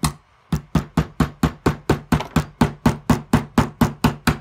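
Rapid light hammer taps, about four a second, driving the firing-pin retaining roll pin into a Ruger 10/22 bolt. Each tap is a sharp metallic click with a brief ring, with one short pause near the start.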